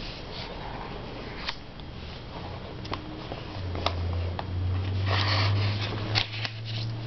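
Stiff glued magazine pages of a scrapbook being turned by hand: paper swishing and rustling, loudest about five seconds in, with a few light paper ticks. A low steady hum comes in about halfway through.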